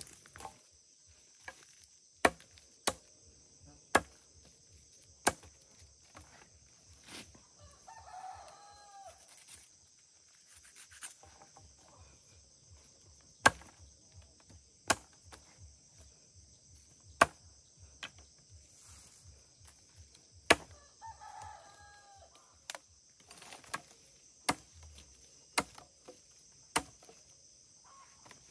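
Sharp chopping strikes land irregularly, about one every second or two; these are the loudest sound. A rooster crows twice, once about a third of the way in and again about three-quarters of the way in. A steady, high-pitched insect drone runs underneath.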